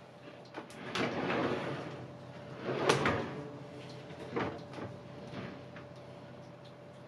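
Melamine cabinet drawer sliding on soft-close drawer slides: a sliding rush about a second in, a louder slide ending in a sharp knock about three seconds in, then a few lighter knocks.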